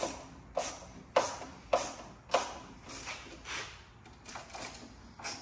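Sharp metallic clicks and knocks from a hand tool working a bolt on a tailgate table's metal mounting plate: about one every half second at first, then fainter and more irregular.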